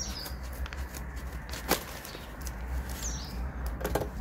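Parcel packaging being torn and crinkled open by hand, with scattered crackles and a sharper snap about halfway through. A bird gives a short falling high whistle twice, over a steady low rumble.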